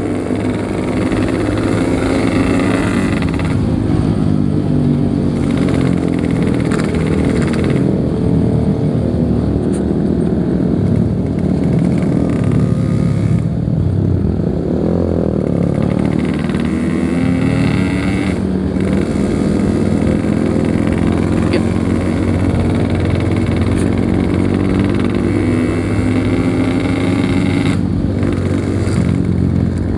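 Yamaha RX-King 135cc two-stroke motorcycle engine running under way, its pitch rising and falling with the throttle, with a dip and climb about halfway through.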